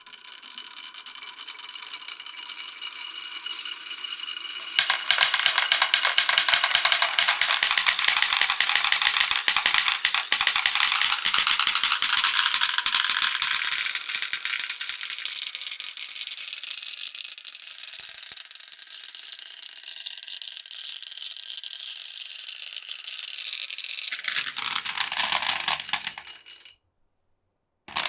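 Many glass marbles rolling and clattering down a wooden marble run. A lighter, even rolling sound at first gives way about five seconds in to a sudden, loud, dense rattle of countless small clicks, which thins out and stops shortly before the end.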